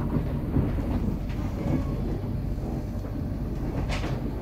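Steady low rumble of a passenger train coach running on the rails, heard from inside the carriage, with a short click about four seconds in.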